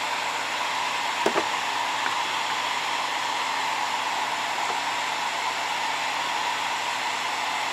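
Steady whooshing background noise with an even hum, like a running blower; a faint click about a second in.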